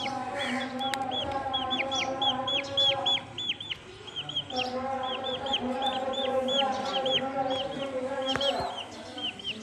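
Chicks peeping rapidly and continuously in short, high, downward-sliding chirps, with a brief lull about four seconds in, over a steady low drone.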